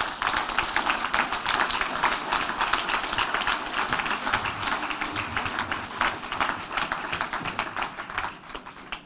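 Audience applauding: a dense patter of hand claps that dies away near the end.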